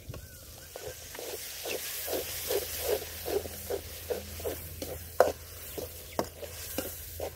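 Perforated metal ladle stirring and scraping a thick tomato-onion masala in a metal kadai over a wood fire, in an even rhythm of about two strokes a second. In the second half come a few sharper knocks of the ladle against the pan, the loudest about five seconds in. A faint sizzle of the masala frying with freshly added ginger-garlic paste runs underneath.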